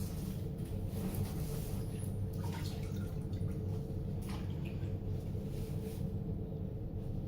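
Bathwater lightly splashing and dripping as a small dog is washed in a tub, over a steady low hum.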